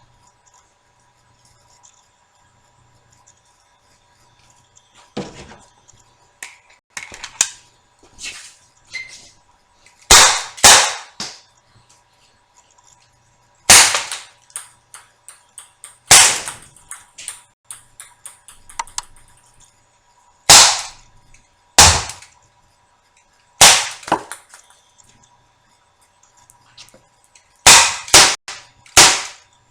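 HK USP 12-gram CO2 airsoft pistol firing about ten single shots, each a sharp crack, at uneven intervals with some in quick pairs. Quieter clicks and knocks of gun handling come before the first shot.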